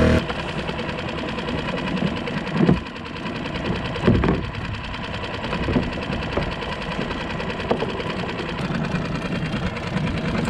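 A small boat motor drops from running under power to a steady idle right at the start, idling with an even, rapid ticking. Two dull thumps stand out about three and four seconds in.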